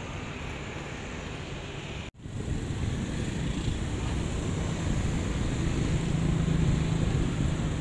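Steady outdoor city noise: distant traffic rumble with wind on the microphone. It cuts out abruptly about two seconds in and comes back louder, with a low steady hum in the second half.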